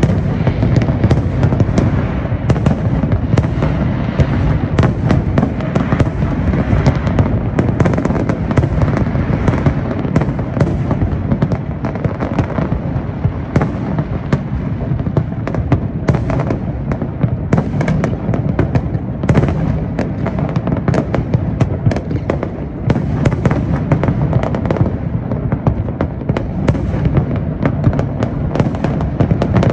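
Fireworks display: a dense, continuous barrage of exploding shells. Sharp cracks come many times a second over an unbroken low rumble of overlapping bangs.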